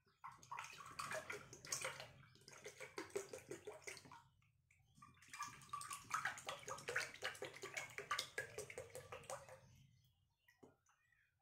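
Mango juice pouring from a carton into glass tumblers, a steady trickling stream. It comes as two pours of several seconds each with a short break between, and stops shortly before the end.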